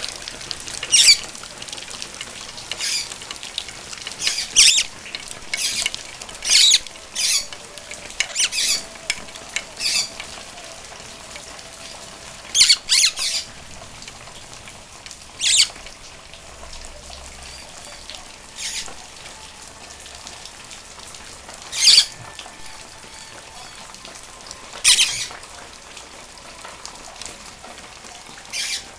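Steady hiss of rain falling, with a pet parrot letting out short, high squawks: many in quick succession over the first ten seconds, then single squawks a few seconds apart.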